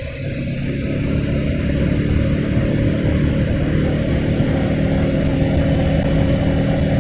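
Motorcycle engine running under steady throttle while riding, getting louder over the first second and then holding an even pitch.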